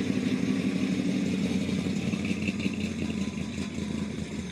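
A motor vehicle engine running steadily, easing slightly in the second half.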